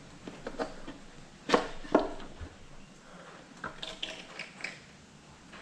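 Hand tools clinking and knocking against metal engine parts: two sharp knocks about a second and a half in, then lighter taps and clicks near the end.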